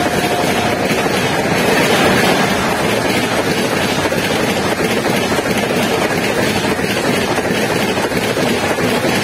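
Red-and-grey LHB passenger coaches of an express train rushing past close by at about 130 km/h: a loud, steady roar of wheels on rail and rushing air. A high steady tone fades out within the first second.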